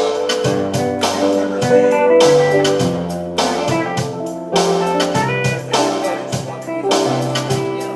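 Instrumental band music led by guitar, with drums keeping a steady beat: the intro of a rock song before the vocals enter.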